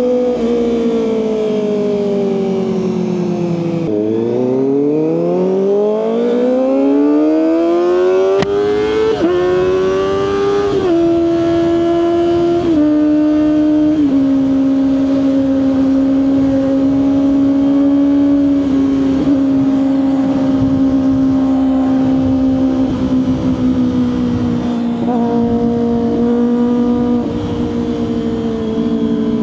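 Kawasaki ZX-25R SE's 249 cc inline-four running through an Austin Racing aftermarket exhaust while being ridden. The note falls as the revs drop, then climbs smoothly for about five seconds under acceleration. It steps down several times and settles into a steady cruise, with a slight dip and rise near the end.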